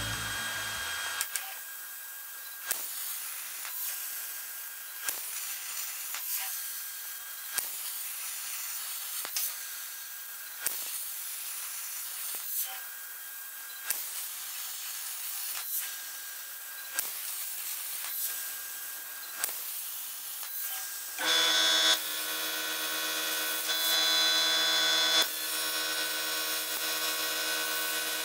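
CNC plasma cutting table at work on steel plate: a steady hiss with a sharp click about once a second. About three quarters of the way through, a louder, steady humming whine sets in, swelling twice.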